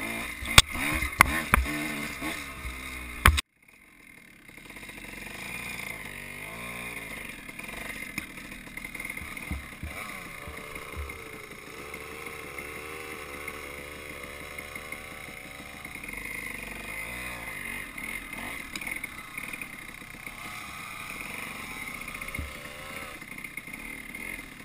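Dirt bike engine running under the rider, rising and falling in pitch with the throttle, heard through a bike-mounted camera. Loud rattling knocks in the first three seconds, then the sound cuts out briefly before the engine comes back.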